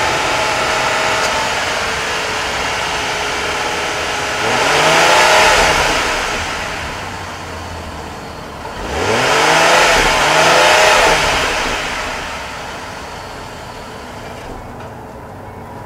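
2011 Ford Taurus Limited's 3.5-litre V6 running, heard at the exhaust, revved twice. Each rev rises in pitch and falls back over about two seconds, then the engine settles to a steady idle.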